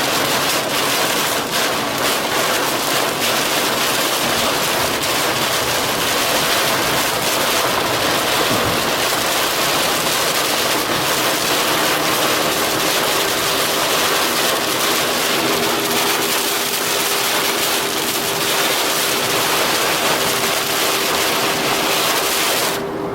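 Heavy rain pelting a moving car, mixed with tyre and road noise, as a loud, steady hiss. A faint steady hum joins about halfway through.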